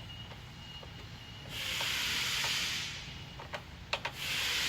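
A ratchet with a socket loosening a bolt: two rasping bursts of rapid ratchet action, each a little over a second long, with a few sharp clicks of metal tool contact between them.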